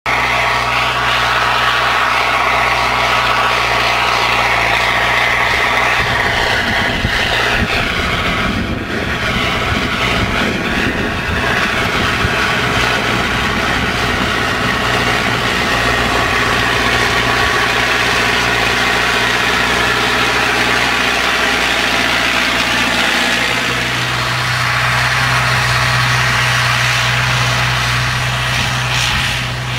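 MTZ 892 tractor's four-cylinder diesel engine running steadily under load, pulling a plough through the soil; its note shifts a few times.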